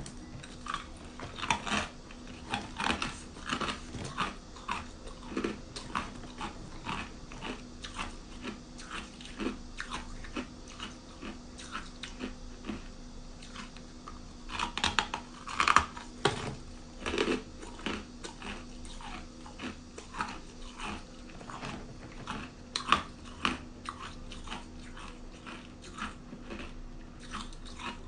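A person biting and chewing ice, a steady run of sharp crunches about one to two a second, loudest a little past the middle.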